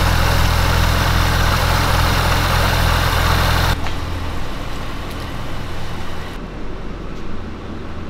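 Cadillac CTS-V's supercharged 6.2-litre V8 idling steadily, loud and low. About four seconds in the sound cuts abruptly to a quieter engine idle.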